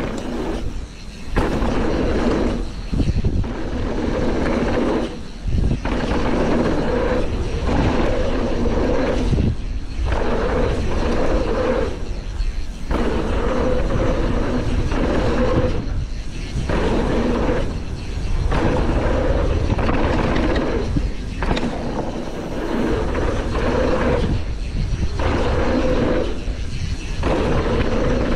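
A Canyon Torque CF 9 mountain bike riding fast down a dirt bike-park trail, heard from a chest-mounted GoPro: wind rushing over the microphone, the tyres rolling on dirt and the bike rattling. This steady noise drops out briefly every one to two seconds.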